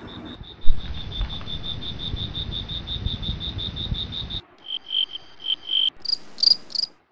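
Cricket chirping in rapid, even pulses, about six a second. About four and a half seconds in it changes to a lower, slower chirp, and near the end to a higher one.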